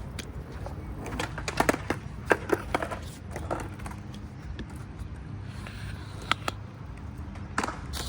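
Skateboard rolling on smooth flat ground, its wheels giving a steady low rumble, with a run of sharp clacks from the board in the first few seconds and two more single clacks later on.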